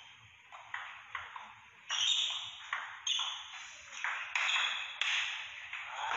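Table tennis rally: the ball clicking sharply off the rubber paddles and bouncing on the table, a string of hits about half a second to a second apart, louder from about two seconds in, each with a short echo.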